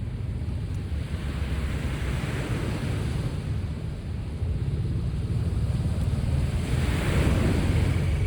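Sea waves washing onto the shore, with a low rumble of wind buffeting the microphone. The surf swells up twice, about two seconds in and again near the end.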